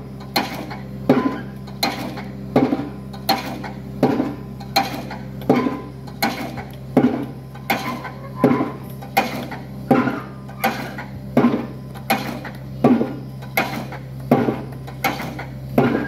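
Pile hammer on a barge rig striking a spun pile in a steady rhythm, about three ringing blows every two seconds, over a steady low machine drone.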